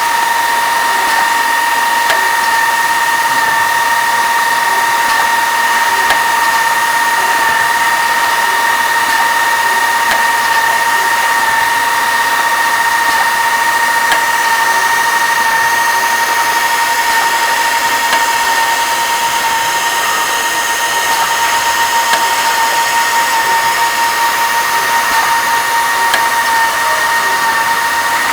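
Pneumatic drilling and tapping machine running: a steady high whine over air hiss, with faint clicks at intervals.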